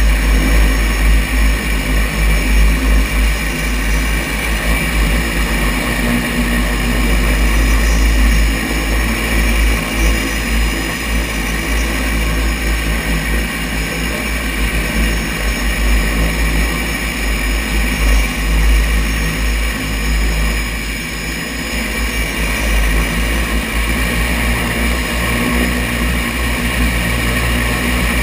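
Seaplane's turboprop engines and propellers running steadily at taxi power as the floatplane moves across the water toward the dock, a steady high whine over a deep rumble. The level dips slightly about three quarters of the way through.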